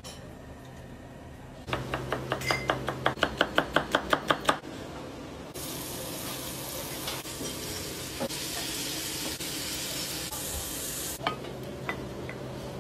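Quick knife chops on a cutting board, about five a second, then sliced peppers sizzling in hot oil in a frying pan, then a few light clinks of a wooden spatula scraping the pan into a glass baking dish.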